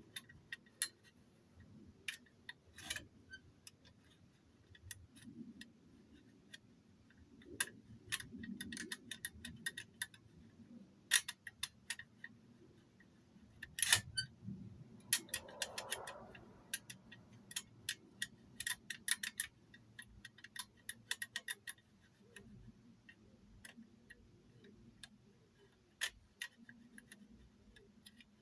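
Lock pick and tension tool working the levers of a Sentry/Omega type 1 safe lever lock, with irregular light metallic clicks, some in quick clusters, and a brief scrape about halfway through.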